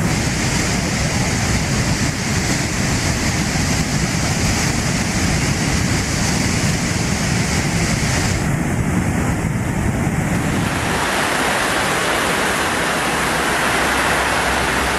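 Loud, steady rushing of fast-flowing floodwater. About eleven seconds in the sound changes, with less low rumble and more hiss.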